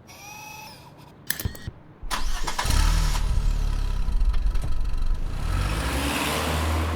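A car engine starting about two seconds in and then running steadily, after a few short rising tones and a couple of sharp clicks.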